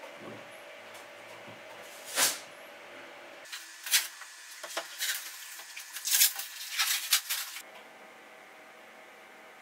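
Masking tape torn off the roll in short rips and pressed onto a 3D-printed plastic boat hull, with knocks and rustles from the hull halves being handled.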